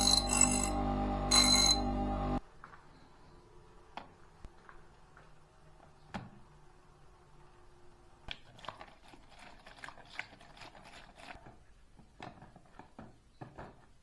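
Background music with bright bell-like strikes that cuts off about two seconds in, followed by faint scattered clicks and light taps, thickest in a run of small ticks past the middle.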